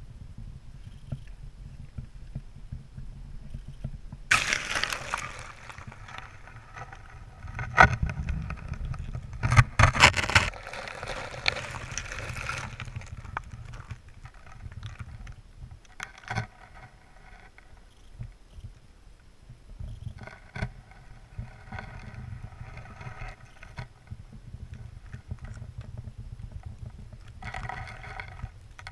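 Freezing seawater thick with slush and broken ice washing over a partly submerged camera housing: a steady low rumble with irregular surges of sloshing and scraping, loudest in a few bursts early on and quieter later.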